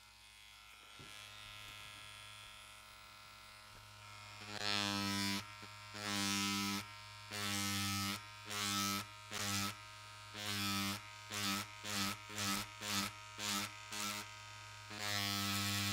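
Electric leather tattoo machine with a thick liner cartridge buzzing. It runs faintly at first, then from about four seconds in it comes in about a dozen short loud bursts as the needle is worked into the leather, and runs steadily near the end.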